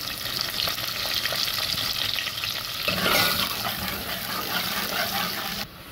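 Sliced onions sizzling as they fry in hot oil in a metal pot, stirred with a steel ladle. The sizzle grows louder about halfway through.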